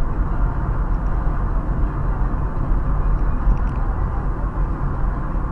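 Steady road and engine noise of a car driving along, heard from inside the cabin: an even low rumble of tyres and engine under a broad hiss.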